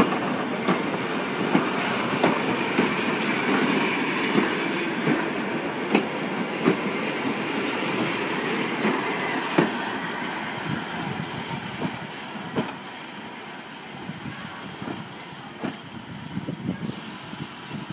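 Heritage passenger carriages rolling slowly past, their wheels clacking over the rail joints with a steady rumble. The sound fades over the second half as the last carriage goes by.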